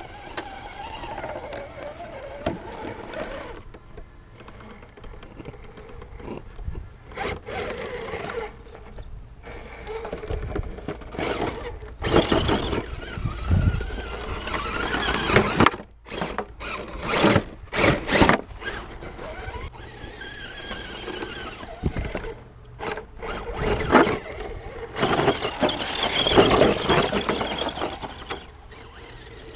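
Axial SCX10 RC crawler's electric motor and geared drivetrain whining as it drives in stop-start bursts, the pitch rising and falling with the throttle.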